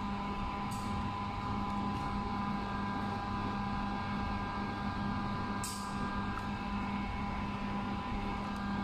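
Steady mechanical hum with a few constant high whining tones over a low rumble, and a couple of faint clicks, about a second in and near six seconds.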